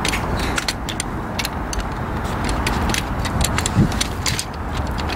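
Metal tent poles clinking and rattling as they are gathered and packed into a bag, in many short sharp clicks. A steady road-traffic rumble runs underneath, and a single dull thump comes about four seconds in.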